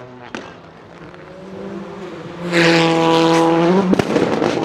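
Rally car engine approaching, then loud at full throttle from about two and a half seconds in, holding a steady high note. The revs rise briefly, a sharp bang follows about four seconds in, then a run of crackling pops.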